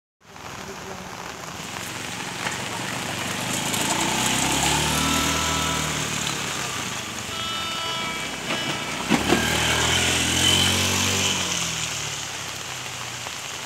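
Steady heavy rain hissing, with a motor vehicle passing close by: its engine note rises as it approaches, is loudest about nine seconds in, then falls away.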